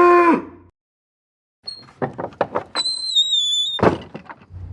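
The tail of a panda cow's long moo, ending about half a second in. After a second of silence come a run of knocks and clicks and a thin high squeal held for about a second, then a sharp knock.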